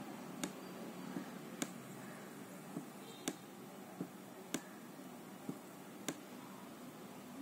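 Computer mouse button clicked about ten times at uneven intervals, single sharp clicks over a faint steady hiss.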